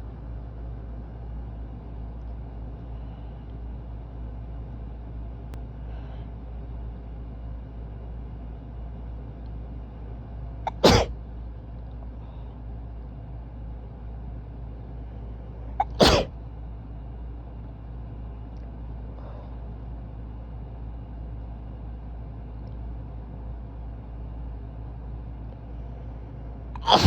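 A person sneezing hard three times, each sneeze short and sharp, with a brief catch of breath just before it; the second comes about five seconds after the first and the third about eleven seconds later, near the end. A steady low hum runs underneath.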